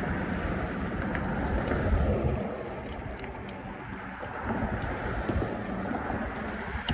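Wind buffeting the microphone while riding a bicycle, with a steady rush of tyre and air noise; the buffeting is heaviest over the first two seconds and eases off about two and a half seconds in.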